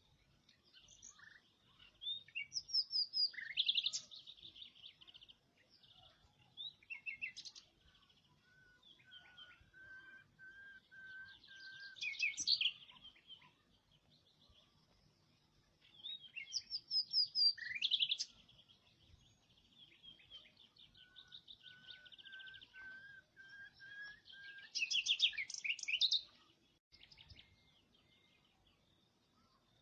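Songbirds singing: bursts of rapid chirps and trills come every few seconds. Twice a second bird gives a run of even, repeated whistled notes.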